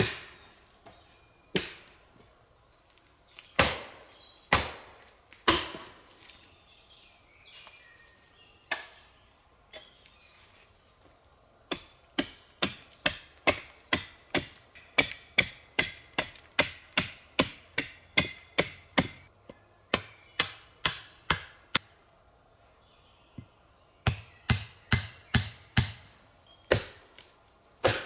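Wood being chopped by hand. A few separate blows come first, then a fast steady run of about three blows a second starting about twelve seconds in, a short pause, and another quick run near the end.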